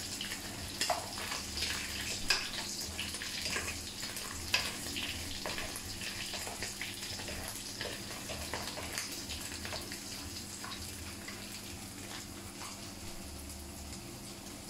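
Pieces of wild boar meat frying in hot oil in a pan, sizzling steadily with frequent crackles and a few sharper pops in the first few seconds; the sizzle eases slightly toward the end.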